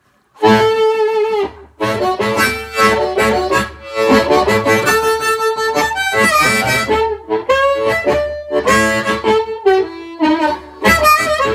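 Blues harmonica in D played through a Shure Commando 420 harp microphone and amplifier: amplified phrases that start about half a second in, with short breaks between them.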